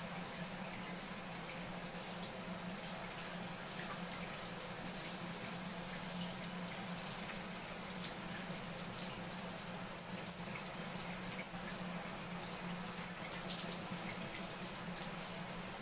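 Tap water running steadily, with small splashes and drips as a cockatiel bathes in it, over a steady low hum.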